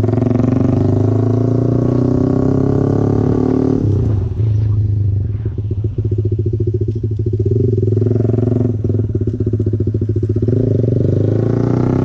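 Motorcycle engine running hard at highway speed, its pitch rising over the first few seconds, dipping about four seconds in, then climbing again near the end.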